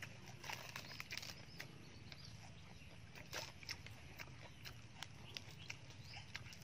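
Eating sounds: irregular soft clicks and crackles of a person chewing with mouth clicks, and crisp Chinese cabbage leaves being torn by hand.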